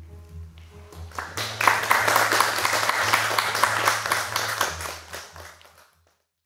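Audience applauding: many hands clapping that swell up about a second in, hold strong, and die away near the end, over soft music underneath.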